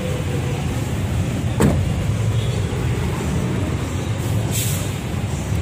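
Steady rumble of road traffic, with a single sharp thump about one and a half seconds in and a short hiss near the end.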